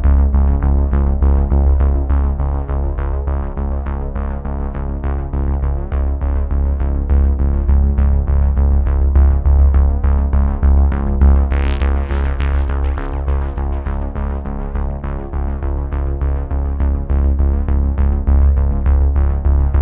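Electronic background music led by synthesizer, with held chords over a heavy bass and a quick steady beat; a brief hissing swell rises about twelve seconds in.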